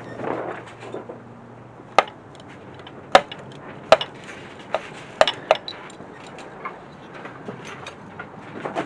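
Hand tools clinking and knocking against metal engine parts while a bracket is unbolted: about eight sharp, irregularly spaced clinks, with a brief rustle near the start.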